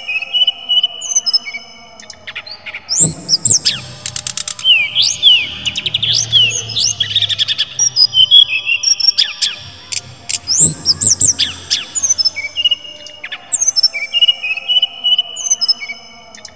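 A caged jungle flycatcher of the kind Indonesian keepers call SRDC (sikatan rimba dada coklat) singing a varied, loud song. Short level whistles open and close it. Between about three and twelve seconds in comes a dense run of quick up- and down-sweeping whistles, with a fast rattling trill around four seconds in.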